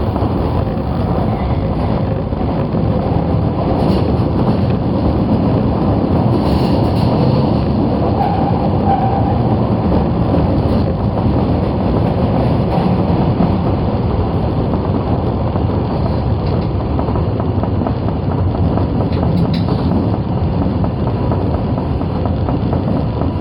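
Osaka Metro 22 series subway train running at speed, a steady rumble of wheels and track heard from the front of the train, with a few faint clicks.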